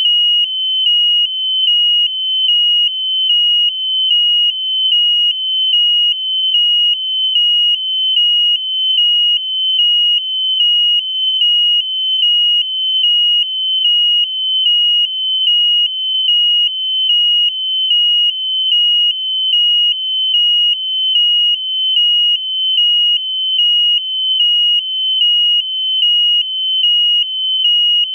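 Electronic piezo buzzer sounding a loud, steady high-pitched tone, broken by a short dip about once a second.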